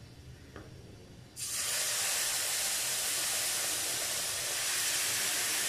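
Water poured into a pan of semolina roasted in hot ghee, hissing and sizzling loudly as it hits the hot fat; the hiss starts suddenly about a second and a half in and holds steady.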